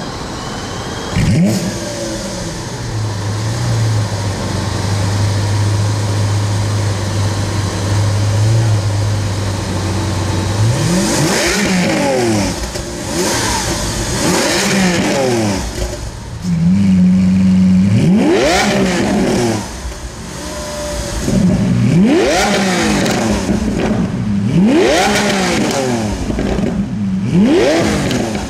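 Lamborghini Aventador LP700-4's 6.5-litre V12 revving while the car stands still. It flares briefly about a second in, idles steadily, then from about eleven seconds in is blipped about ten times, each rev rising and falling quickly, with a higher steady hold partway through.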